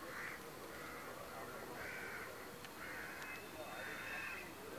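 Crows cawing over and over, a short harsh caw roughly once a second.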